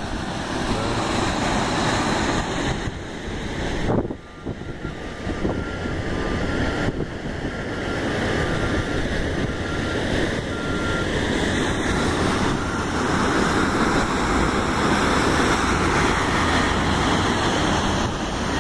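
Wind buffeting the microphone over breaking surf, with a bulldozer running on the beach. A faint beep repeats for several seconds, starting about four seconds in.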